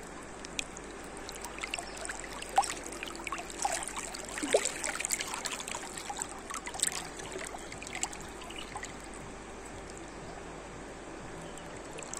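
River water lapping and gurgling right at a microphone held at the surface: a steady rush scattered with small splashes and plinks, busiest in the first half.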